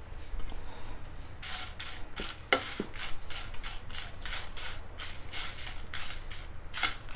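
A steel spoon stirring and scraping dry whole red chillies around a nonstick frying pan as they roast, a rustling scrape about three times a second starting a second and a half in, with one sharp clink of spoon on pan about two and a half seconds in.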